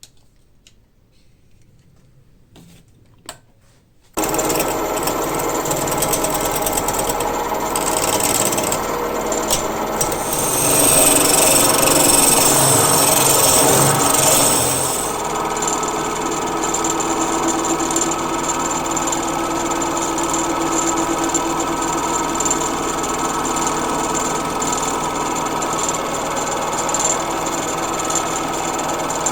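A few light knocks, then a wood lathe switches on about four seconds in and runs with a steady mechanical hum. In the middle it grows louder with a high hiss as the turning tool cuts the spinning wood, then settles back to a steady run.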